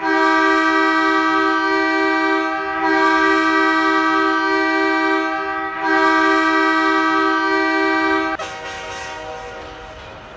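Goal horn: a loud multi-note air-horn chord sounded in three long blasts of about three seconds each. It cuts off about eight seconds in, leaving a fading echo.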